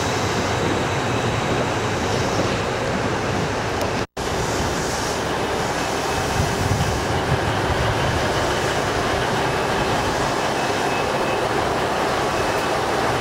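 KiHa 8500 series diesel railcar running at close range, a steady rumble. The sound drops out for a moment about four seconds in.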